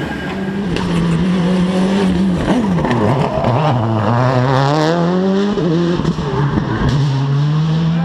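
Rally car engine revving hard through a bend: its pitch drops about three seconds in as the car slows, climbs again as it accelerates, and breaks briefly for a gear change.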